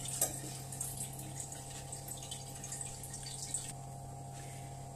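Water being poured into a large aluminium cooking pot, a steady splashing that dies away near the end, over a low steady hum.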